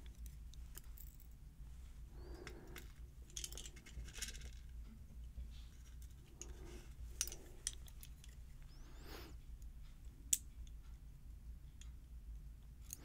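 Faint small metallic clicks and scrapes as pins are worked out of a pin-tumbler lock and set down in a pinning tray, with one sharper click about ten seconds in.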